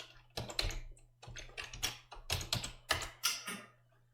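Typing on a computer keyboard: uneven runs of keystrokes that stop shortly before the end.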